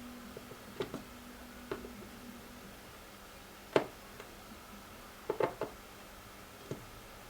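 A few light clicks and taps from handling the opened tablet's parts on a workbench. The loudest tap comes about four seconds in, with a quick cluster of small clicks around five and a half seconds.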